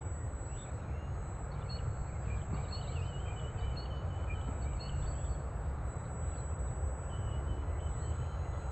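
Birds chirping and singing over a steady low rumble.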